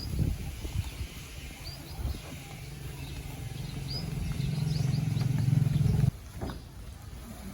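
A low machine hum grows louder and cuts off suddenly about six seconds in. A few short, high bird chirps come in the first three seconds.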